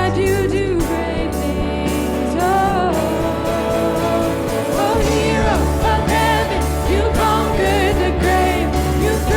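Live worship music: a singer over a band with bass and a steady drum beat.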